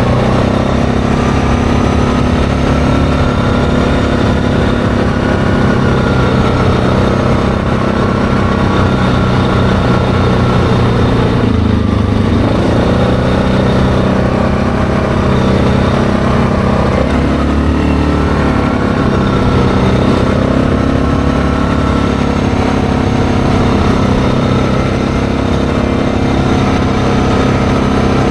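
ATV engine running steadily while riding along a gravel trail. The engine note dips briefly about twelve seconds in, then picks back up.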